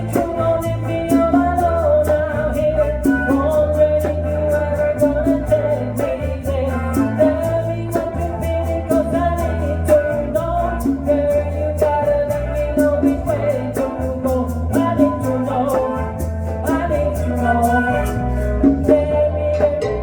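Small Latin band playing a salsa groove: congas and bongos keeping a steady, dense rhythm over bass, guitar and keyboard, with a wavering lead melody on top.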